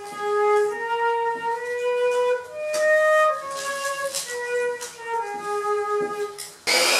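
Concert flute playing a slow melody of held notes in its lower-middle range, with short pauses for breath between phrases. Near the end it is cut off by the sudden loud noise of a power miter saw starting up.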